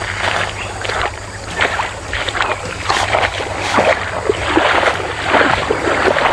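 Shallow stream water splashing and gurgling: a busy, irregular run of small splashes.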